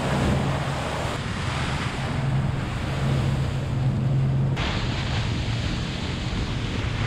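Wind buffeting the microphone and sea water washing around a boat, with a steady low hum beneath.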